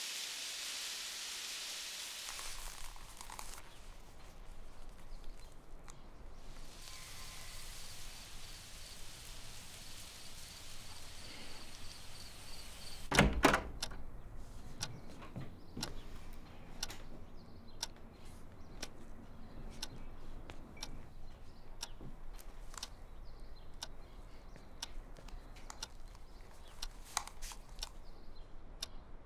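A steady hiss for the first few seconds. About halfway through, a loud thump as a door opens, followed by scattered knocks and clicks.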